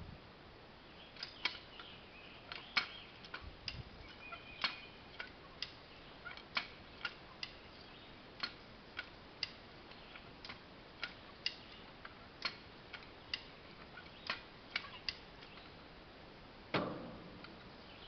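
A hand ratchet's pawl clicking in an even series, about two clicks a second, as the tool is worked, then one heavier clunk near the end.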